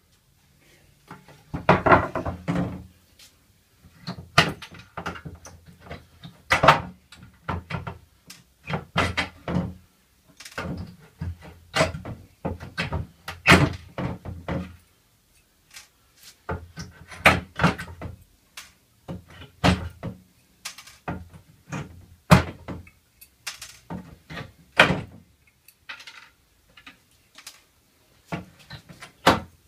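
Pallet-wood frame and boards knocking and clattering against a wooden workbench as they are handled and positioned: irregular sharp knocks and thuds, some in quick clusters, with short pauses between.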